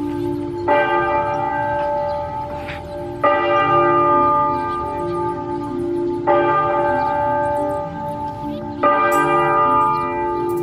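Church bell ringing, struck four times about every two and a half to three seconds, each stroke ringing on until the next. It is rung as Mass is about to start.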